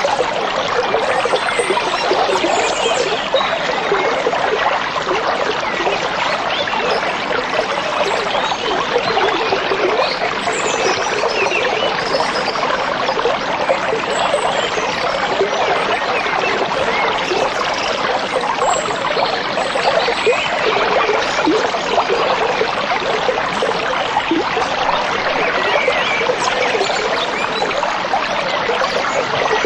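A stream babbling and trickling steadily over stones, with a few faint high bird chirps now and then above the water.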